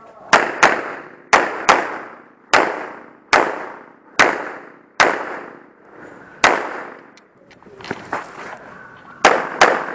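A string of about a dozen pistol shots fired at an irregular pace, some in quick pairs, each shot with an echoing tail; a longer pause comes past the middle before a final quick pair near the end.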